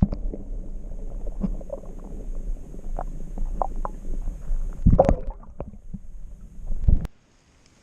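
Low rumbling handling noise on the microphone with scattered small knocks, and two louder thumps about five and seven seconds in. The sound cuts off suddenly just after the second thump.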